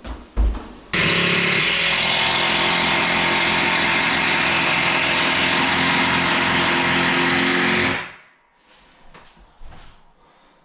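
A power tool's motor running at a steady speed for about seven seconds, starting suddenly about a second in and stopping near the end, after a couple of knocks.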